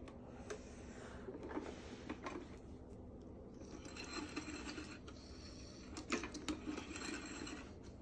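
Light clicks, rattles and rubbing from a switched-off vintage upright vacuum cleaner being handled, its handle tilted back; the sharpest clicks come about six seconds in.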